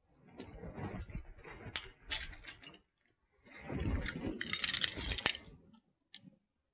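Metal clinking and rattling as a steel CV boot clamp ring and a pair of locking pliers are handled, in two bursts; the second burst, as the pliers are brought onto the clamp, holds several sharp clicks.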